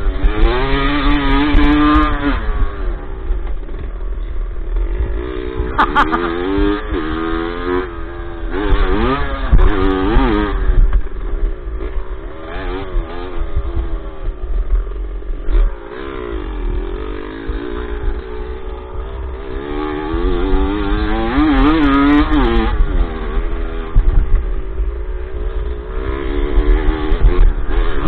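Dirt bike engine heard from on board, revving up and dropping back several times as the bike accelerates and eases off around a dirt track, over a steady low rumble.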